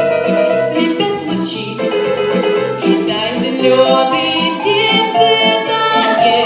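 Instrumental passage of the song's accompaniment music, with a steady bass note about twice a second under plucked and sustained notes.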